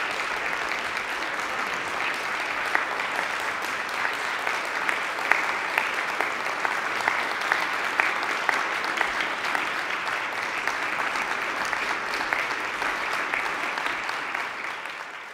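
Concert audience applauding steadily for the performers, a dense patter of hand claps that fades out at the very end.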